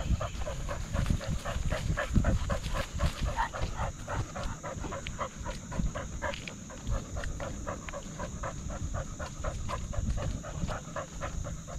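Dog panting rapidly and steadily, about three to four breaths a second, heard close up from a camera on its back, over a low rumble from the camera jostling as it moves.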